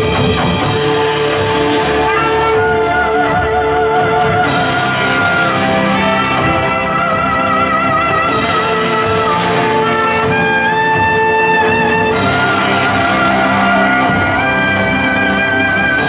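Live stage music: a trumpet plays a slow melody of long held notes with vibrato over a fuller accompanying ensemble.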